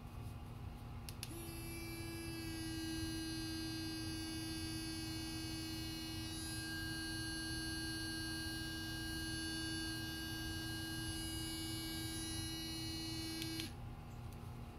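Sonic electric toothbrush, rated at 40,000 strokes per minute, switched on with a click about a second in. It runs with a steady, even buzz for about twelve seconds, then clicks off near the end.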